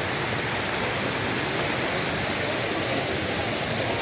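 Rushing water of a canyon creek: a loud, steady, unbroken rush.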